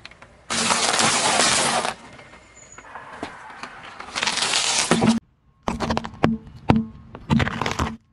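Car tyre rolling over and crushing crunchy food on asphalt, waffle cones among it: about a second and a half of crunching, a quieter pause, a second burst of crunching, then a string of sharp cracks and snaps.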